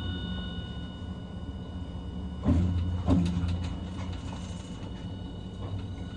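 Hiroshima Electric Railway 1000 series low-floor tram running on track: a steady low rumble of the wheels, with thin steady high tones from its Toyo IGBT inverter that fade out a little before halfway. Two loud knocks come about two and a half seconds in and again about half a second later, each followed by heavier rumbling.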